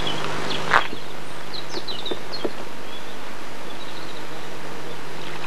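Riverside ambience under steady camcorder hiss and a low hum, with scattered faint high chirps and one short sharp click about a second in.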